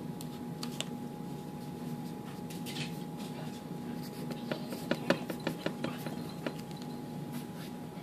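Pencil writing on paper: light scratching strokes with a quick run of sharp taps of the point in the middle, the loudest about five seconds in.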